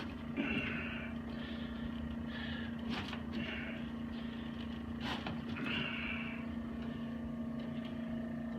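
A steady low hum with faint rustling over it and two brief soft clicks, about three and five seconds in.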